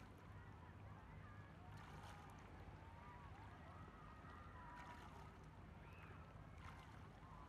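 Near silence: a faint steady low hum with faint wavering tones above it.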